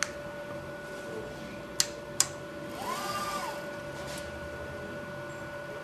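Industrial dispensing robot starting its cycle: sharp mechanical clicks at the start and twice about two seconds in, then a short servo whine that rises and falls in pitch as an axis moves, over a steady machine hum.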